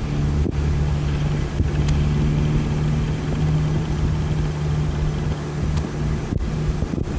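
A steady low motor hum with an even hiss above it.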